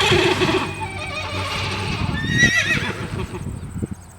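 Recorded horse whinnying: a wavering call at the start and a second, shorter whinny about two and a half seconds in, with hooves clopping near the end.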